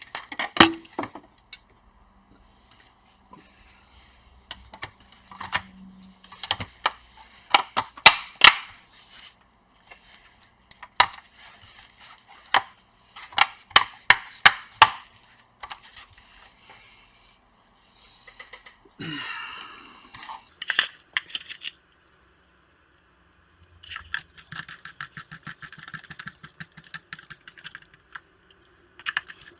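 Sharp plastic clicks and taps of laptop parts being handled and snapped back together during reassembly, with a brief scrape partway through and a run of denser small clicks near the end.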